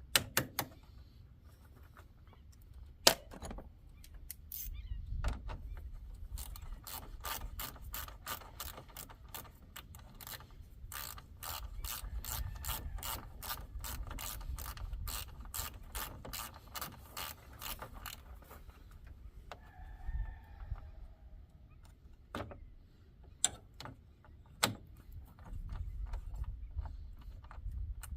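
A hand socket ratchet clicking in long runs of quick, even clicks as a fastener is turned, with a few separate knocks of tools on metal before and after.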